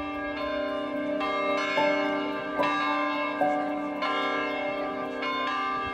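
Church bells ringing, several bells struck one after another, each tone ringing on under the next, with one low tone sounding throughout.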